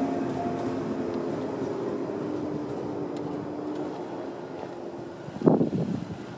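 Shinano Railway 115-series electric train running away from the level crossing, its rumble and hum fading steadily. A short, louder noise breaks in about five and a half seconds in.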